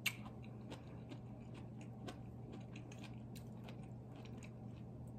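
A person chewing a mouthful of beef and broccoli stir fry topped with roasted cashews, with many faint crunching ticks. A sharp click of the fork against the ceramic plate comes right at the start.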